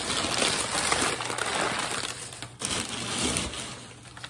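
Newspaper packing paper rustling and crumpling as it is handled: one long stretch, then a shorter one about three seconds in.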